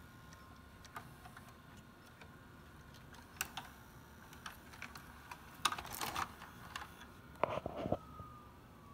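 Toshiba VCR's tape transport working through an eject: scattered mechanical clicks and clunks, loudest about six and seven and a half seconds in, over a faint steady motor whine that starts to fall in pitch near the end. The cassette's tape is getting tangled in the mechanism.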